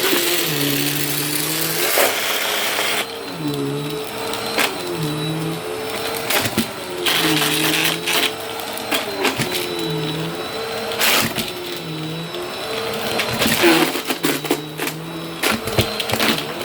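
Vacuum cleaner running, its motor tone dipping and recovering about once a second as it works, with scattered clicks and crackles of crunchy debris being sucked up.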